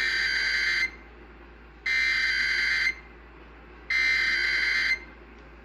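Emergency Alert System SAME header: three bursts of warbling digital data tones, each just under a second long and a second apart, opening the national EAS test alert.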